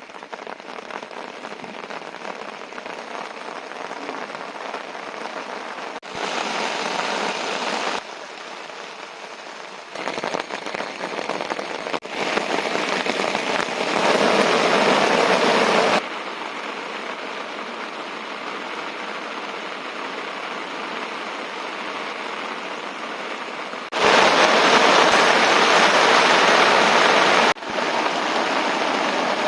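Steady hiss of rain, in several stretches whose level jumps up or down suddenly at each join.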